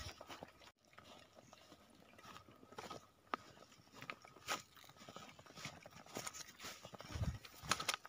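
Footsteps crunching in thin snow, faint and irregular, with a couple of low thumps near the end.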